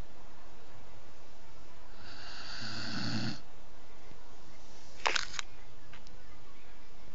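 Snoring from a sleeper: one long snore about two seconds in, over a steady hiss. A couple of short sharp sounds follow about five seconds in.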